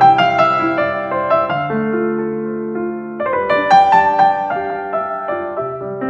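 Background piano music: a melody of held notes over bass notes that change every second or so.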